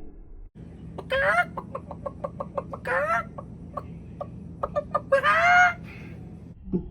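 A person imitating a chicken: rows of quick clucks broken by three rising squawks.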